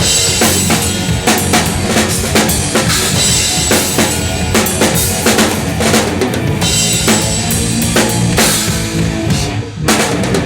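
Progressive thrash metal band playing live, the drum kit loudest: fast, busy kick drum and snare hits over distorted guitars and bass. Near the end the band stops for a split second, then comes back in.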